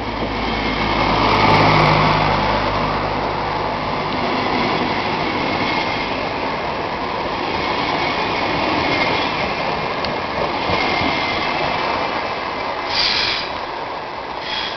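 Passenger coaches of a departing InterCity train rolling past at low speed, a steady rumble of wheels on rail with faint high tones coming and going. Two brief louder bursts come near the end as the last coach goes by.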